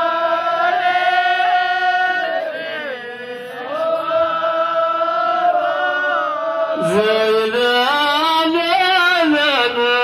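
A solo male voice chants a line of Amazigh tanḍamt sung poetry into a hand microphone. He holds long, drawn-out notes, with a dip in pitch a couple of seconds in and a sharp rise about seven seconds in, then moves into a wavering, ornamented passage near the end.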